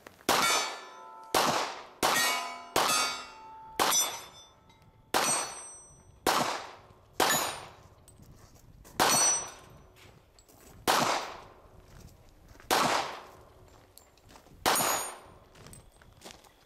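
Handgun shots at steel targets, each sharp report followed by the ringing clang of a steel plate being hit. About a dozen shots, roughly one a second at first, then about two seconds apart.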